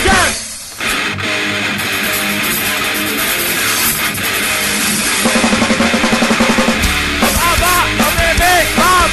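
Punk-metal band playing an instrumental passage on distorted electric guitars and drum kit. It drops out briefly about half a second in and comes back in, with a fast repeated riff around the middle and notes swooping up and down near the end.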